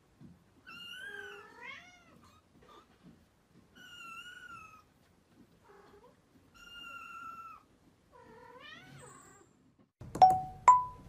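Kittens mewing: four high, wavering mews a second or two apart. Near the end come two short, louder plinks, the second higher than the first.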